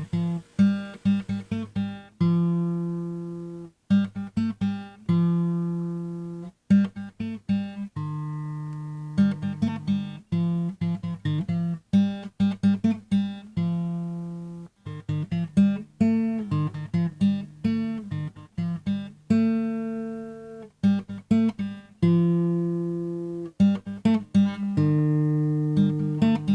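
Background music on a solo acoustic guitar: plucked notes and chords that ring out and fade, with brief pauses between phrases.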